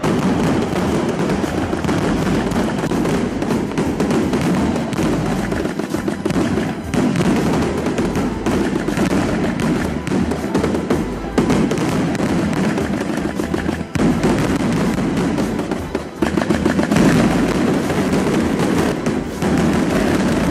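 Fireworks crackling and popping densely, mixed with music.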